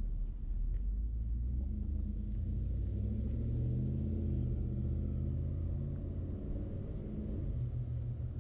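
Low rumble of a motor vehicle's engine in street traffic, with a steady humming tone that swells through the middle few seconds and eases near the end.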